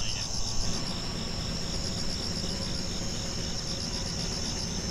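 Night insects chirring steadily: a shrill, high trill with a fast even pulse, over a low steady background rumble.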